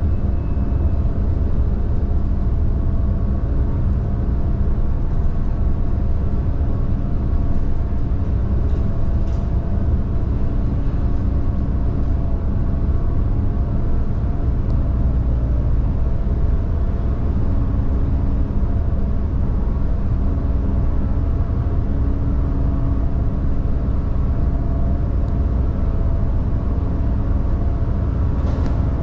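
Car ferry's engines droning steadily: a continuous low rumble with a few steady humming tones, heard from the ship's deck while under way.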